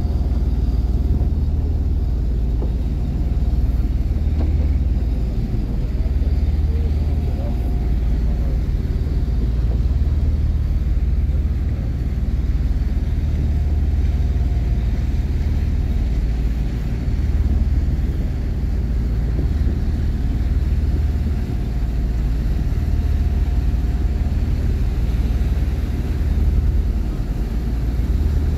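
Twin MTU diesel main engines of a fast passenger ship idling at the quay, heard at the stern exhaust outlets. A deep, steady rumble that swells and eases every couple of seconds.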